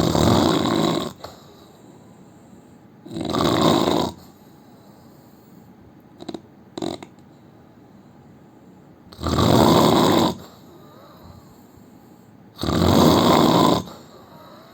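A man snoring in his sleep: four loud snores, each about a second long, at uneven gaps of two to five seconds, with two brief short sounds near the middle.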